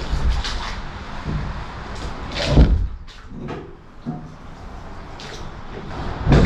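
Knocks, clatters and thuds of hard objects being handled and shifted around inside a boat's hull, with two heavier thumps, one about two and a half seconds in and one near the end.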